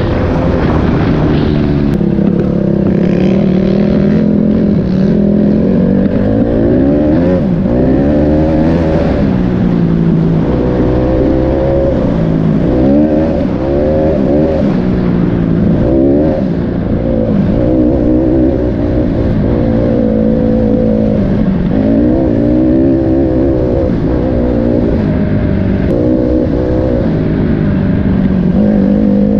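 Small dirt bike engine running under way, its pitch repeatedly rising and falling as the throttle is worked and gears change.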